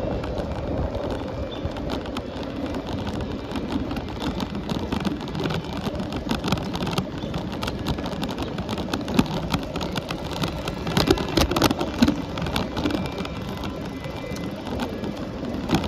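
Steady riding noise of a bicycle rolling along a paved road: a rumble with lots of small rattling clicks, which grow thicker and louder a little after halfway.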